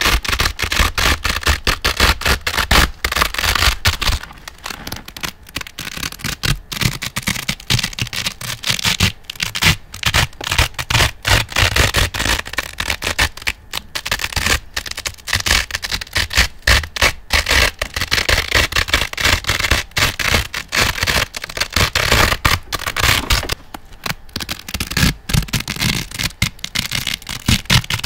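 Velcro hook-and-loop fastener ripped apart again and again close to the microphone: a dense, crunchy crackling with a few short pauses.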